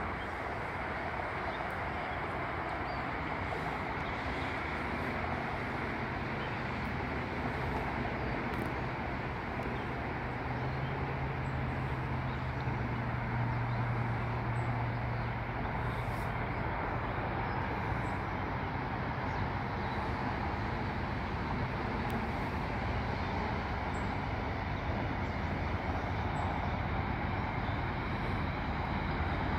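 Steady distant rumble of road traffic, with a faint low hum that grows a little stronger in the middle.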